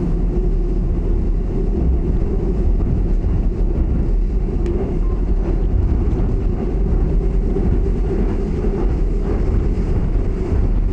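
Seoul Subway Line 2 train running along an elevated section, heard from inside the car: a steady low rumble that holds even throughout.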